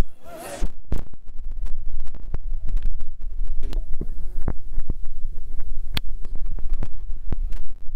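Low rumble of wind buffeting a phone microphone, with scattered handling clicks and a brief wavering call about half a second in.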